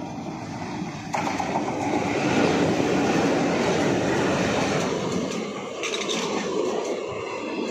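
Passenger train running along the platform track, led by a diesel locomotive. The sound jumps sharply about a second in as the locomotive draws level, then turns into a steady rumble and clatter of coach wheels rolling past on the rails.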